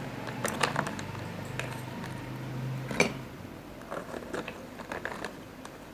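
Scattered light clicks and taps of a kitchen utensil against a pan or dish, with one sharper knock about three seconds in, over a steady low hum that stops just after it.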